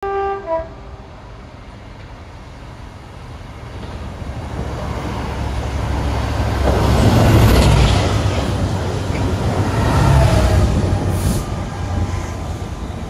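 A short two-note train horn at the very start, then the rumble of trains passing: an LNER Azuma and the diesel locomotive of a railhead treatment train. The rumble builds to its loudest about seven to eight seconds in, swells again around ten seconds, then eases.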